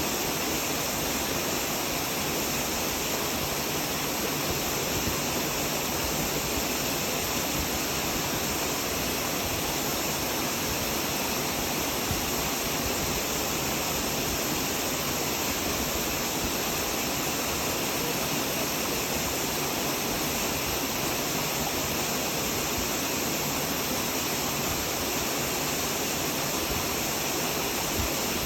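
Steady rushing water, an even, unchanging roar with no distinct events.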